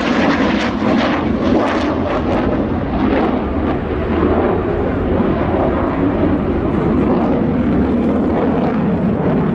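Jet airplane sound effect: loud, steady engine noise of a plane flying past.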